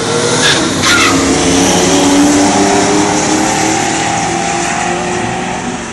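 A 2006 Pontiac GTO with a 6.0 L LS2 V8 and a Ford Mustang GT accelerate hard side by side in a drag race, both engines revving up through the gears. Their street tires squeal for grip at the launch. The sound is loudest about two seconds in, then eases as the cars pull away down the track.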